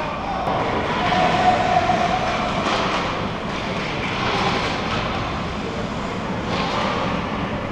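Steady, noisy ice hockey rink ambience: skating on the ice and voices in the arena blurred into one continuous wash, with faint distant shouts.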